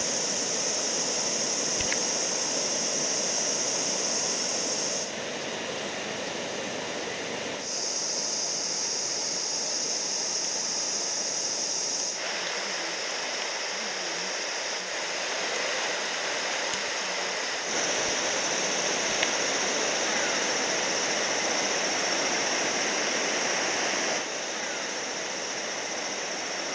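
Muddy floodwater of the typhoon-swollen Shimanto River rushing steadily over and around a submerged low-water bridge. The tone of the rush changes suddenly at several cuts between shots, and some shots carry an extra steady high hiss.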